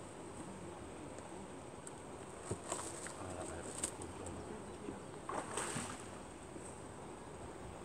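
A hooked fish splashing at the surface of a lake a few times as it is drawn toward the landing net, the longest splash about five seconds in, over a faint steady outdoor hiss.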